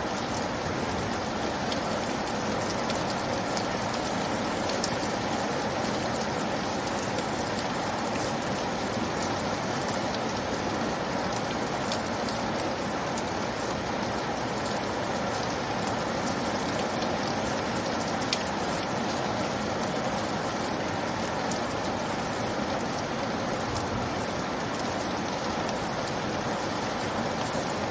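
Steady rainfall, an even hiss with faint scattered drop ticks.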